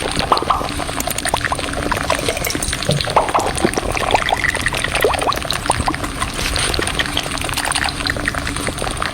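Water trickling steadily, with many small clicks and splashes running through it.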